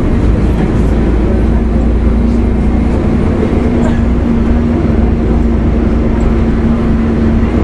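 2004 Gillig Phantom transit bus's Cummins ISL diesel engine and Voith D864.3E transmission running with a loud, steady low rumble and a steady hum that holds one pitch.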